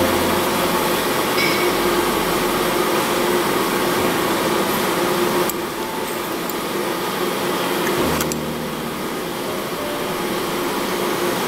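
A steady mechanical whir with a low held hum, shifting abruptly in tone about five and a half and eight seconds in.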